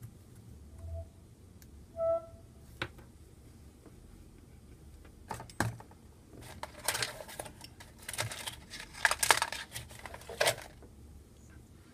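Small plastic connectors and wire leads handled and plugged together on a desktop. There are a few sharp clicks, then several seconds of irregular scraping and rustling from the cables.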